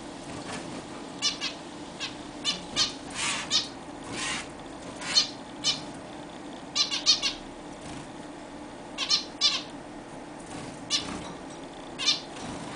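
Zebra finches giving many short, pitched calls, single or in quick little runs, scattered irregularly, over a steady low hum.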